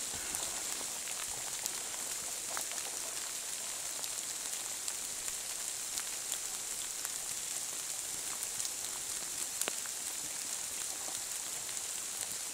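Steady rain falling through a forest canopy: an even hiss with scattered small ticks of drops landing.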